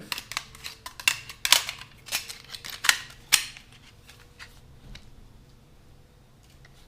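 Sharp clicks and knocks of a 2.5-inch laptop hard drive being handled and fitted into the PlayStation 3's drive caddy, several in quick succession over the first three seconds or so.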